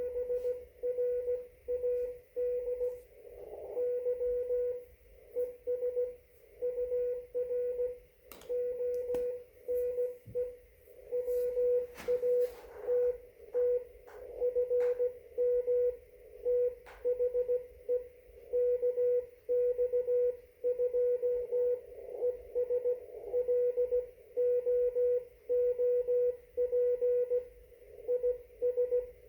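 Morse code (CW) from a ham radio transceiver: a single steady tone keyed on and off in dots and dashes, over faint band hiss. A few clicks and crackles come through in the middle.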